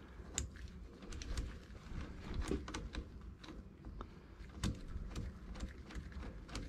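Faint, irregular metallic clicks and taps of a wrench turning a hydraulic line fitting onto the 90-degree fitting of a steering cylinder as it is tightened.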